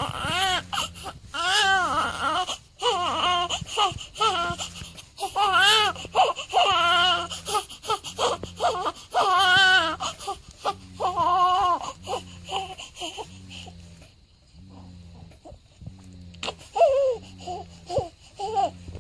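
Newborn baby crying in repeated wails, each rising and falling in pitch, dying down to a quieter spell about two-thirds through before a few short cries start again near the end.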